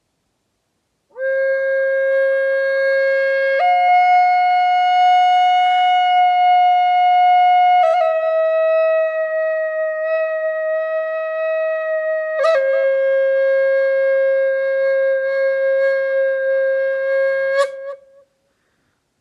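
Native American flute playing a slow phrase of four long held notes. It steps up to a higher note a few seconds in, drops a little about halfway, settles back on the opening note, and breaks off about a second before the end.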